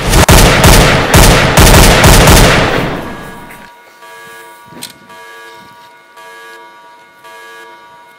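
A rapid string of rifle gunshots, a sound effect, loud for about three seconds and then fading away. After that only faint, steady electronic tones remain.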